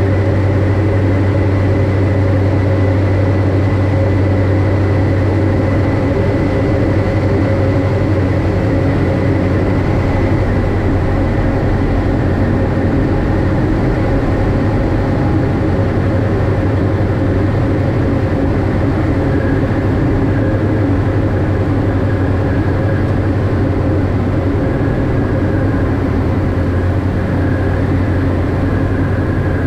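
Diamond DA42 twin-engine propeller aircraft in flight, heard from inside the cockpit: a loud, steady drone of both engines and propellers at constant power, with an even high whine over it.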